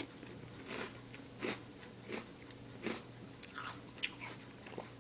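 Mouthful of Reese's Puffs cereal being chewed, a string of soft crunches about one every three-quarters of a second, coming quicker near the end.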